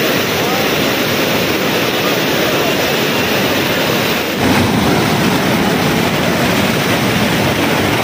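Large waterfall's falling water, a loud, steady rushing noise with no pitch; it changes slightly about four and a half seconds in.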